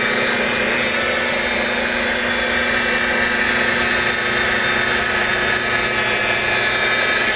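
Electric buffer running steadily with a constant whine while its pad works compound flat across a boat's fiberglass gel coat, a final cutting pass to take out heavy swirl marks.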